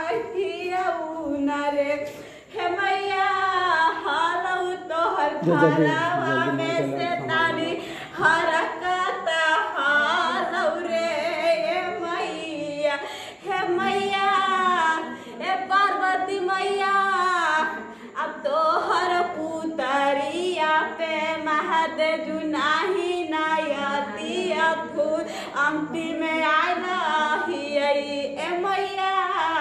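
Women singing a devotional folk song to the mother goddess, unaccompanied voices without instruments.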